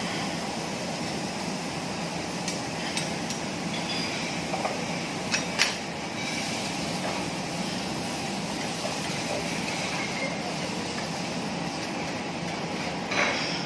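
Steady hiss from a teppanyaki griddle with food cooking on it, broken by a few sharp clacks of metal spatulas on the steel plate. Two close clacks about five and a half seconds in are the loudest, and another comes near the end.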